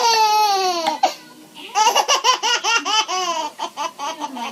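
Baby laughing: a long high squeal that slides down in pitch, then after a short pause a run of quick, rhythmic bursts of giggles.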